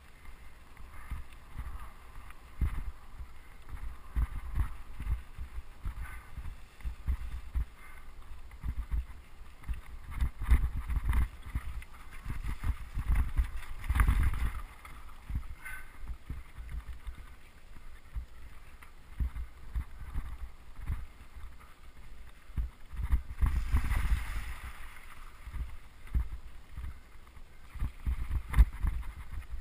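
Bike wheels jolting over a rough, stony track, with frequent low knocks and rattles from the mount and a rumble of wind on the microphone. The jolting grows louder and rougher about halfway through and again near the end.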